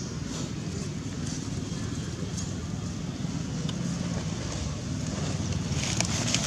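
Steady low outdoor rumble, with crisp crackling of dry leaves being disturbed near the end.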